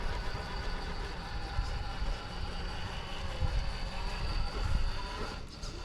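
RC rock crawler's electric motor and gear drivetrain whining steadily as the truck crawls, with wind rumbling on the microphone.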